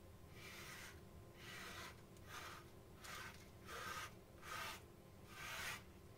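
Metal palette knife scraping and spreading thick acrylic paint across a canvas in a series of short, faint strokes, about one a second.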